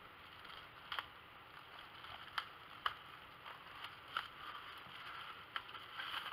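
Handling noise from the hub and its accessories being picked up and turned over: light rustling with several sharp clicks, the loudest two about half a second apart near the middle.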